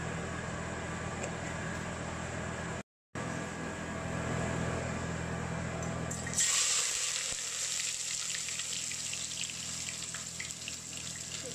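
A steady low hum with a faint sizzle of spices tempering in oil, cutting out briefly about three seconds in. About six seconds in, sliced onions hit the hot oil in a stainless steel pot and a loud sizzle and crackle of frying takes over.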